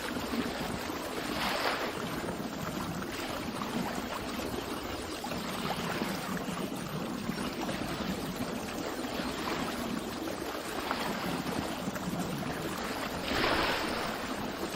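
Water rushing and lapping steadily, with a louder wash about a second and a half in and another near the end.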